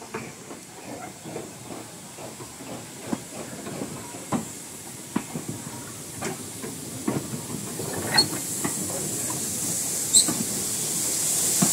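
Steam locomotive hissing steam, growing louder near the end, with scattered light knocks and clicks.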